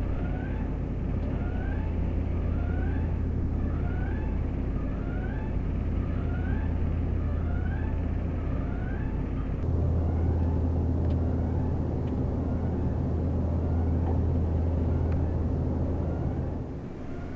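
Steady low machinery hum from a mineral processing plant. For roughly the first half, a short rising chirp repeats about every two-thirds of a second over it. About ten seconds in the hum changes and grows a little stronger, then continues alone.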